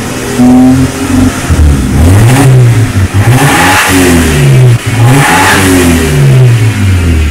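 BMW E46 318's four-cylinder engine revved through a custom twin-tip exhaust with only the rear silencer deleted (catalytic converter and resonator kept). The throttle is blipped several times, the pitch rising and falling each time with a raspy edge at the top of each rev. The engine is still cold from a cold start.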